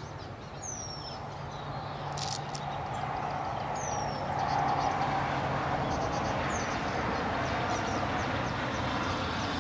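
Outdoor background: a steady rushing noise with a faint low hum that builds up a few seconds in, and three short falling bird chirps.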